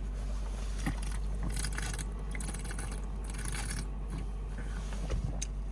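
A drink being chugged from a bottle swirled into a vortex so it pours out fast: faint gulping and gurgling liquid, with a soft click about a second in.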